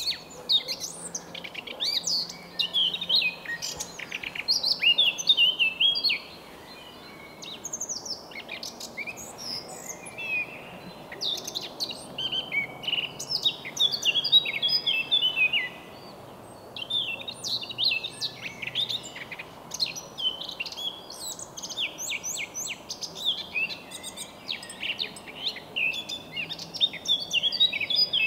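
Eurasian blackcap singing its warbling song: long runs of quick, varied whistled notes, broken by brief pauses about six seconds in and again around sixteen seconds.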